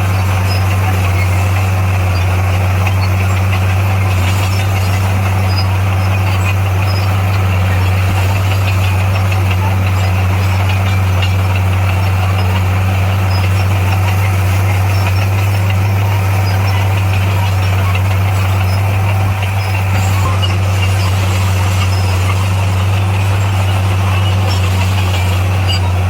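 Diesel engine of heavy earthmoving equipment running at a steady speed, a constant low drone that dips briefly about nineteen seconds in.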